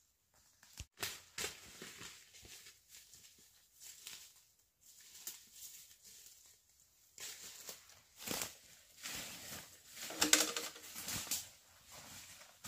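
Irregular rustling and handling noises that come and go in uneven stretches, loudest about ten seconds in.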